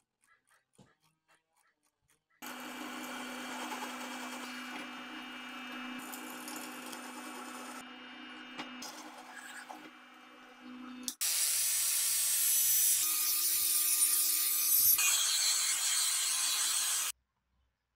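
Power tools at work on a part. First a motor-driven tool runs with a steady hum for about nine seconds; then a louder, harsher machining noise runs for about six seconds and stops abruptly.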